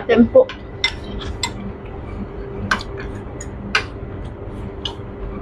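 Metal spoons and forks clinking and scraping against ceramic soup bowls while eating, a string of sharp clinks spread roughly a second apart. A steady low hum runs underneath.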